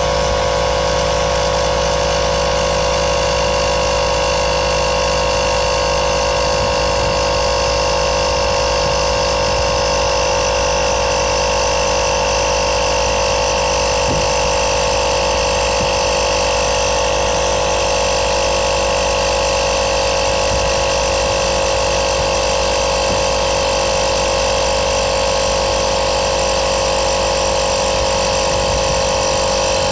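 Small electric air compressor from a tyre puncture repair kit running steadily, inflating a tyre after the sealant has gone in.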